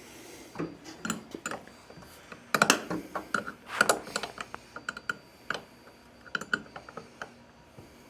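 Irregular metallic clicks and knocks of a wrench working the 10 mm clamp bolt of a car's wing-window frame, a few per second, loudest in two clusters about two and a half and four seconds in.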